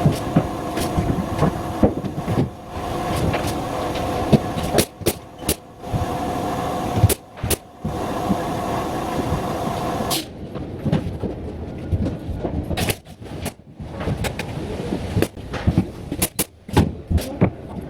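A machine or power tool running with a steady hum that breaks off suddenly several times during the first ten seconds, then scattered knocks and clatter of work on a building site.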